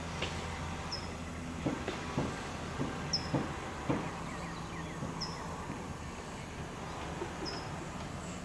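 Mini excavator's diesel engine running with a steady low hum, with a handful of sharp knocks a couple of seconds in. Over it a bird repeats a short, high, falling chirp about every two seconds.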